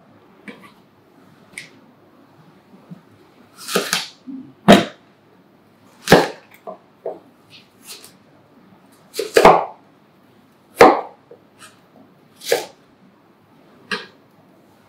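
Chef's knife cutting peeled Granny Smith apples into chunks, the blade going through the fruit and knocking on the cutting board in sharp, irregular chops, about seven loud ones with lighter taps between.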